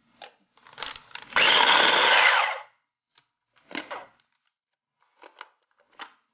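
Electric mini food chopper running once for about a second and a half, grinding baked cookie centres into crumbs; it starts and stops abruptly. Short clicks and knocks of its plastic lid and bowl being handled come before and after.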